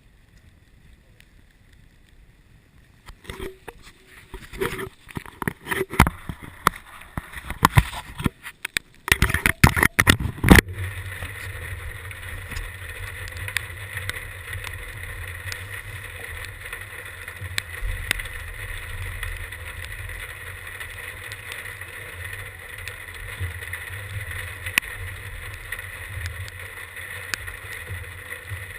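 Irregular knocks and clattering for several seconds, then a small motor starts abruptly and runs steadily with a low hum and a thin high whine.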